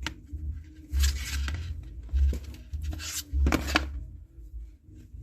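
Nylon paracord rustling and scraping as it is pulled and wrapped around the fingers, in a few short bursts, with soft low bumps from the hands.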